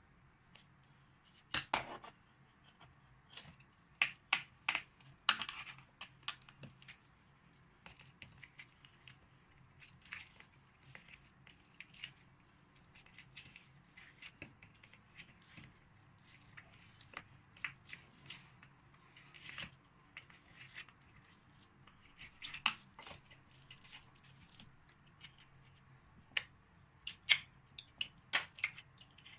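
Slime being squeezed and worked by hand, giving irregular sticky clicks and small crackles with short pauses between them.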